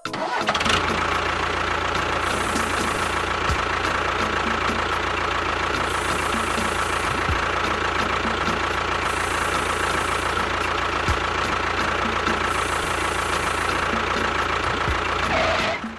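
A steady engine-like running noise with a constant whine. It holds one even level throughout and cuts in and out abruptly.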